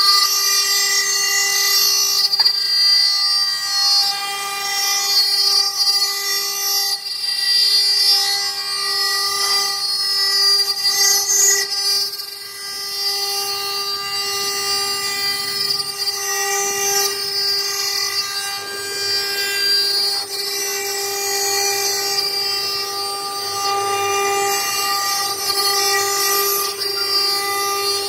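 Stone-carving CNC router's spindle running with a steady whine of several held tones while its water-cooled bit cuts into a stone slab, over a hiss of cutting noise.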